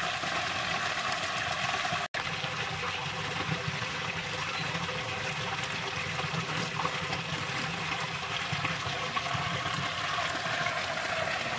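Steady running, trickling water that cuts out for an instant about two seconds in.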